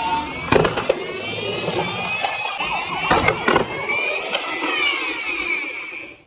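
Several toy vehicle sirens wailing at once, overlapping tones that rise and fall. There are a few sharp knocks about half a second in and again around three seconds in, and the sound cuts off near the end.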